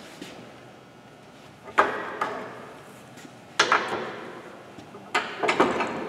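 Metal tools and tool parts knocking and clattering as they are handled at a bench vise and set down on the workbench. There are single sharp clanks about two seconds in, a pair of them midway, and a quick cluster near the end.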